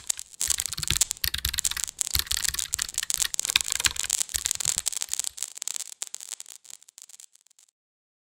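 Dense crackling, static-like sound effect with irregular low thumps underneath. The thumps drop out about halfway through, and the crackle thins and fades away shortly before the end.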